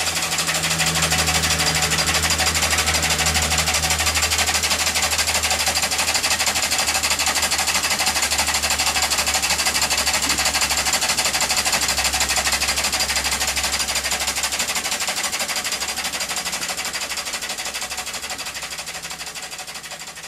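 Homemade steam engine running fast on 20 psi of steam, beating in a rapid, even rhythm with a hiss of escaping steam. It fades away over the last few seconds.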